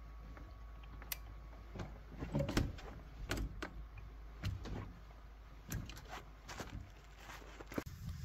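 Irregular knocks and clunks of boots on the rungs of a roof-top tent's ladder and gear being handled as someone climbs down off a pickup truck, with the loudest cluster about two seconds in.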